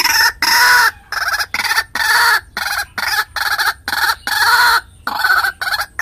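White-breasted waterhen (ruak-ruak) calling loudly, a run of about a dozen rough notes at roughly two a second with short gaps between them.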